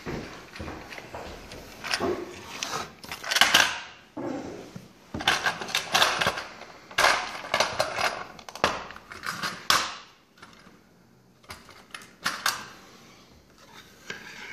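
Clicks, taps and scrapes of a 1:43 scale model car and its plastic display base being handled while the model is unscrewed from the base. They come in quick clusters for about the first ten seconds, loudest about three seconds in, then only a few scattered clicks.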